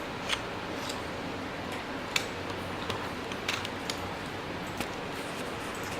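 Small, irregular clicks and taps of a camera microphone being slid into and fitted on a video light's hot shoe, over a steady background hiss.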